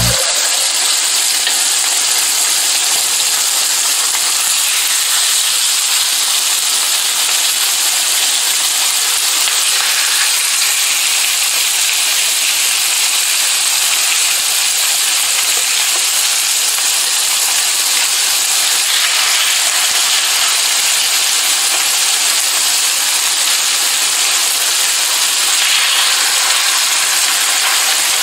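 Skin-on chicken thighs sizzling steadily as they fry in a hot stainless steel skillet.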